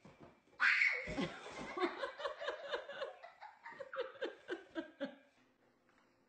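Laughter in a long run of quick ha-ha bursts, about four a second. It starts loudly just over half a second in and dies away about five seconds in.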